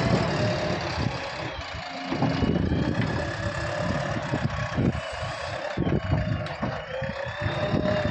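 JCB 3DX backhoe loader's four-cylinder diesel engine running as the machine lifts its empty front loader bucket and reverses away.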